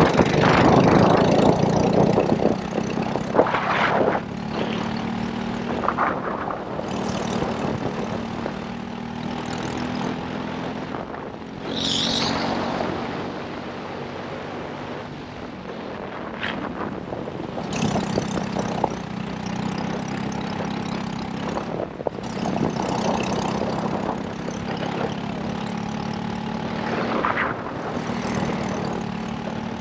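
Racing kart engine running hard at speed, its note rising and falling with throttle through the corners, with wind on the microphone.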